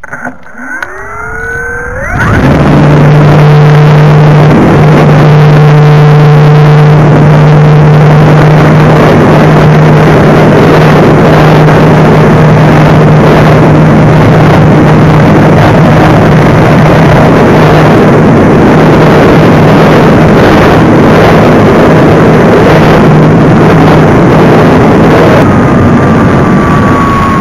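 Electric motor and propeller of a 1.1 m Parkzone Spitfire model, heard from its onboard cockpit camera: a rising whine over the first two seconds, then full power for the take-off, loud and steady with a heavy rush of air over the microphone, easing off near the end.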